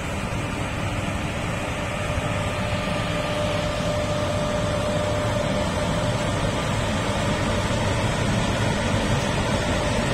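WAG5 HA electric locomotive running with its blowers and machinery going: a steady rush and hum with a faint whining tone, growing a little louder.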